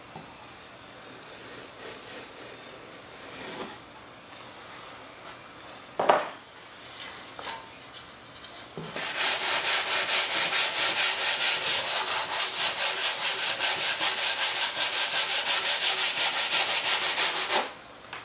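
A long aluminum sanding block with 100-grit paper is rubbed back and forth over a balsa stabilizer's leading edge in rapid, even strokes from about halfway in until near the end. It is blocking down a small lip left on the planed edge. There is a sharp knock about six seconds in.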